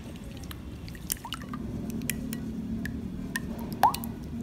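Silicone whisk beating eggs, milk and sugar in a ceramic bowl: wet squishing and slopping with scattered light ticks.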